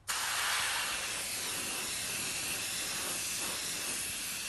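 Aerosol antibiotic spray can hissing in one continuous, steady spray that starts suddenly, applied to a sutured skin wound.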